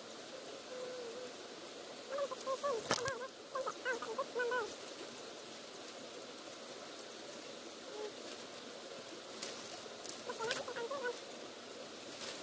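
Farm poultry calling in two clusters of short, quick calls, a couple of seconds in and again near the end, with a sharp click about three seconds in.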